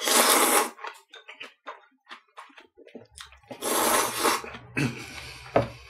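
A person slurping udon noodles: a loud slurp right at the start, then small chewing clicks, then a second long slurp from the bowl of dipping sauce about three and a half seconds in.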